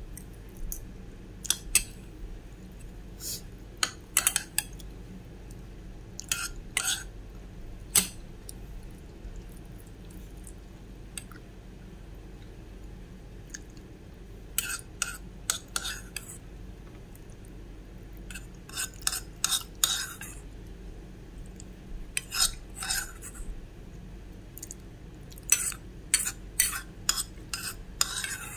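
Metal spoon scraping and clinking against a bowl in irregular clusters of short strokes with quiet pauses between: scooping up the last of the curry and scraping the bowl clean.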